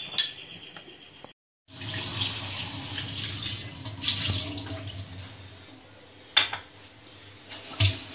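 Kitchen tap running into a stainless steel sink as a small ceramic bowl and then hands are rinsed under the stream, with two sharp knocks in the latter half. In the first second there are a few clinks of olives dropping from a jar into the bowl.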